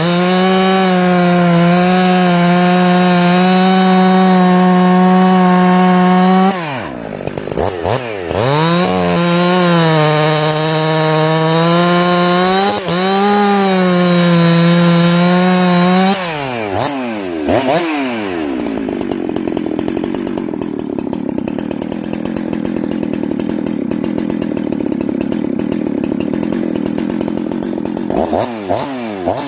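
Ported two-stroke chainsaw cutting through a log at full throttle. The revs hold steady in the cut, drop and climb back about 7 seconds in, then fall away about 16 seconds in and settle to an idle that runs a little slow, with a couple of throttle blips near the end. The carburettor's high-speed jet is set about 1 1/4 turns out.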